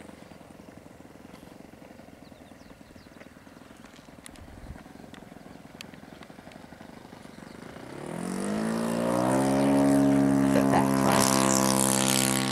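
RC model airplane's engine opening up for takeoff. After a low wash of wind noise, about eight seconds in a loud propeller drone rises in pitch and then holds steady at full throttle as the plane climbs out.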